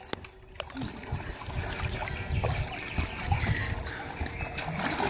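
Swimming-pool water lapping and trickling around a dog wading in the shallow end and a person moving through the water.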